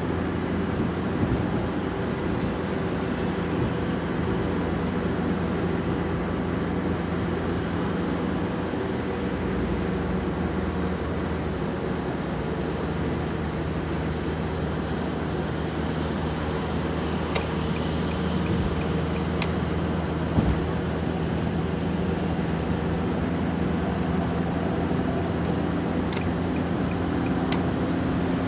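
Steady road and engine drone heard inside a car's cabin on the highway, with a few brief clicks in the second half.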